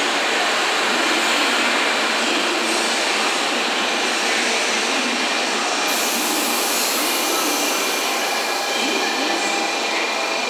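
JR Kyushu N700-series eight-car Shinkansen train rolling slowly into the platform as it arrives: a steady hiss of running and wheel noise, with a thin high whine held throughout.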